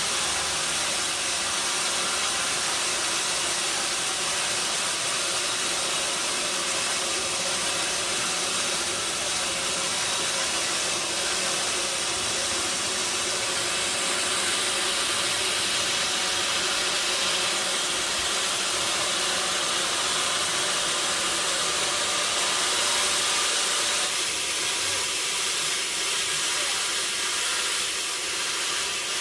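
Sawmill machinery running with a steady hissing noise, shifting slightly in tone about 24 seconds in.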